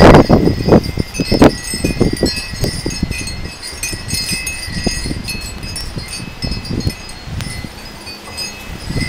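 Wind chimes ringing on and off in strong, gusty wind, with gusts buffeting the microphone, the heaviest right at the start.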